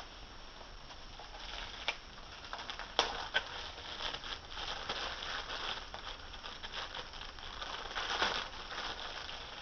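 Packaging being unwrapped by hand: a steady crinkling rustle with a few sharp crackles, the loudest about three seconds in and again near the end.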